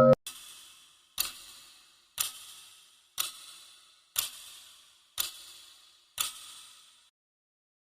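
Seven sharp ticks, evenly spaced about a second apart, each trailing off in a short fading hiss; they stop about seven seconds in.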